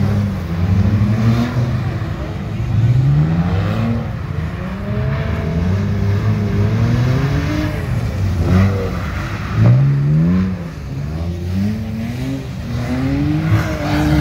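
Car engines revving hard again and again, the pitch climbing and dropping every second or so, as cars drift and spin donuts on wet pavement.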